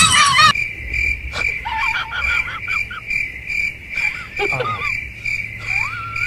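Cricket-like chirping: a steady high tone pulsing about three times a second, with a few short gliding calls over it. It opens with the tail of a person screaming and laughing, cut off about half a second in.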